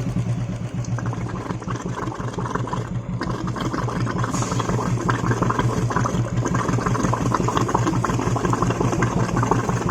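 Royal Enfield Classic 350 UCE single-cylinder engine idling steadily with its new hydraulic tappets and oil pump, free of tappet noise.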